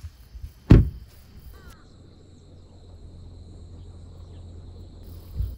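Insects chirring steadily, with one loud, short low thump about a second in and a smaller thump near the end.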